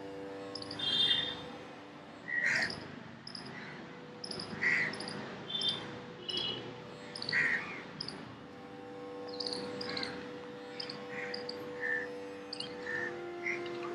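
Birds chirping: short, high calls scattered about once a second, over a faint steady hum. A lower steady tone joins near the end.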